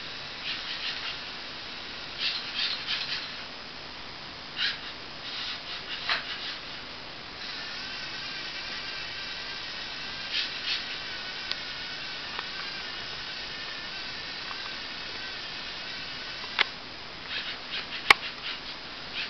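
LEGO Mindstorms NXT servo motors whirring through the model's gears. Short bursts of whine come in the first several seconds, then a steady whine runs for about nine seconds, followed near the end by a couple of sharp clicks.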